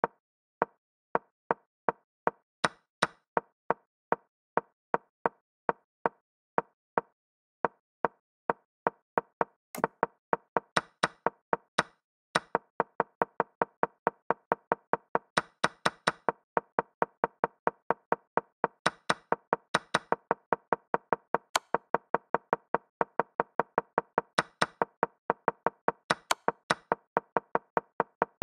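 Chess app move sound effects: a short wooden knock for each move as a game replays at speed, about one or two a second at first and quicker, two to three a second, after about twelve seconds. Some of the knocks have a sharper, brighter crack, the sound used when a piece is captured.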